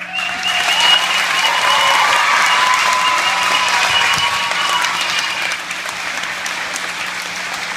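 Audience applauding, starting abruptly right after a children's song ends and easing off slightly after about six seconds.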